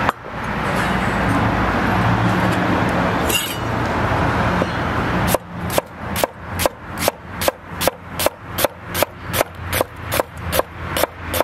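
Chef's knife slicing a red onion on an end-grain wooden cutting board: sharp, evenly spaced taps of the blade on the wood, about two to three a second, starting about five seconds in. Before that there is a steady background rumble and one brief clink.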